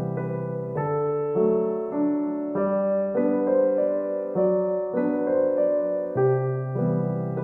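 Slow, calm piano music of the relaxation kind, with a new note or chord about every half second over held low bass notes.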